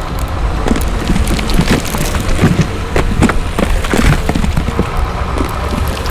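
Heavy construction machine's engine running steadily, with irregular wooden knocks and clatter of logs being picked up and dropped.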